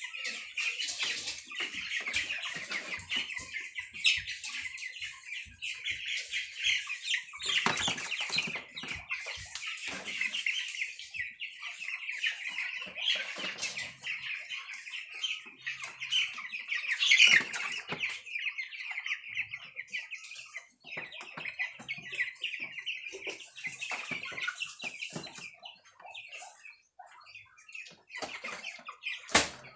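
A flock of broiler chickens peeping and calling continuously in a high chorus. Several louder bursts of wing flapping and scuffling break in as birds are handled in the cage, the loudest about halfway through, with a sharp click near the end.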